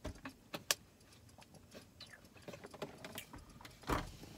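A scattered series of sharp clicks and knocks, with louder knocks at the start, at just under a second and about four seconds in, and fainter ticks between.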